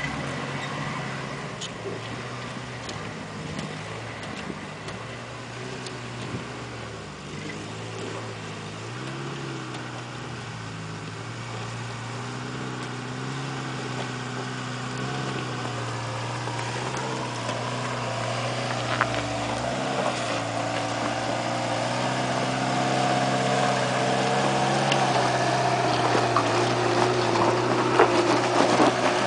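Suzuki Samurai's four-cylinder engine crawling up a rocky hill in low gear, revs rising and falling as it works over the rocks, growing steadily louder as it comes closer. A few sharp knocks stand out in the second half.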